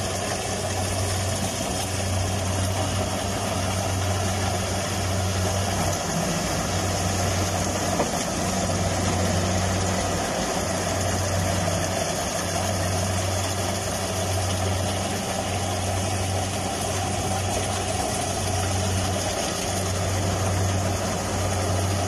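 Compact combine harvester running steadily as it cuts and threshes standing corn, its engine and machinery making a low throb that swells and fades about once a second.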